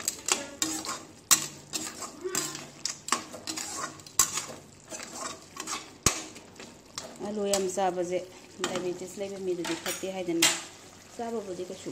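A perforated metal skimmer ladle stirring thick snail curry in a metal kadai, with repeated sharp clinks and scrapes of metal on the pan.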